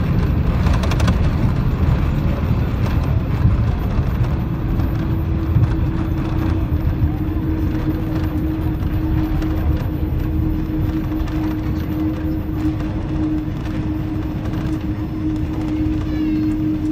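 Airbus A340 cabin noise while taxiing after landing: a steady low rumble from the engines and the rolling wheels. A steady hum comes up about four seconds in and holds.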